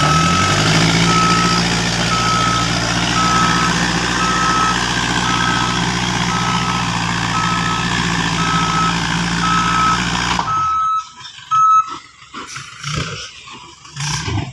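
Heavy earthmoving machine's diesel engine revving up and then running steadily under load, its reversing alarm beeping about once a second. The engine sound cuts off abruptly about ten seconds in, and the beeping stops shortly after.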